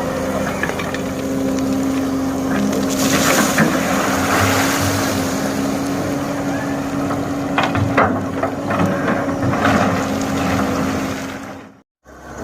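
Hitachi hydraulic excavator's diesel engine running steadily under load, with scattered clanks and knocks from the digging work. The sound stops abruptly near the end.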